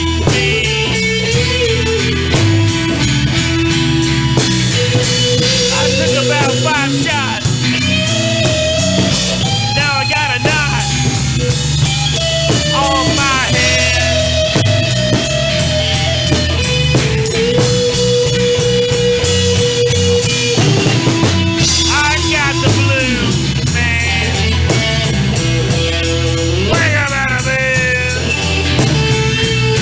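Blues-rock band playing: a lead electric guitar with bent, wavering notes over bass guitar and drum kit.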